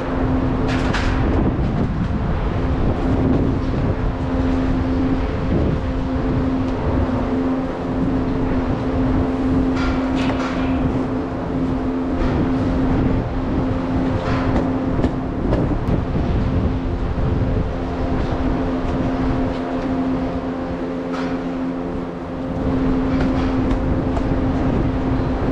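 Steady mechanical hum with rushing air from the barn's ventilation fans, which pull outside air in through the opened fan louvers. A few brief knocks and scrapes come as the insulation batts are handled and fitted behind the louver.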